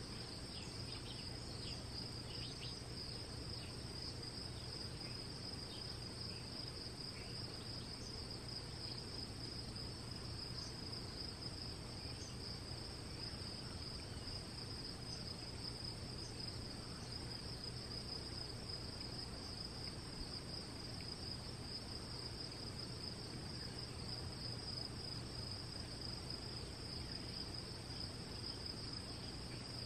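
Faint, steady high-pitched trilling of insects that never lets up, over a low background hum.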